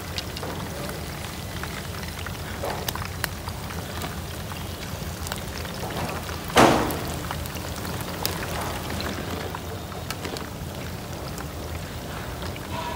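Whole shrimp deep-frying in a wok of hot oil: steady sizzling with small crackling pops, and a sudden louder burst of sizzling about halfway through.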